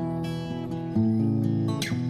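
Background music: acoustic guitar strumming chords, with a chord change about a second in and a brief slide near the end.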